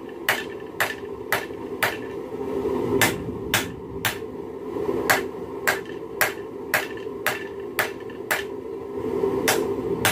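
Hand hammer forging a red-hot railroad spike on an anvil: sharp metal-on-metal blows, about two a second, with two short breaks. A steady rushing noise runs underneath.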